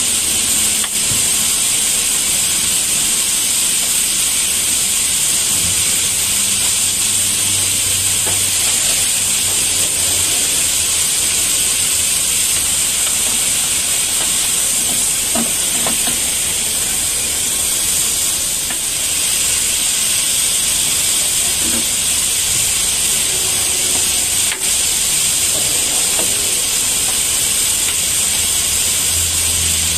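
Pressure-washer lance spraying a high-pressure water jet against a truck cab's grille, a steady hiss that dips for a moment a few times.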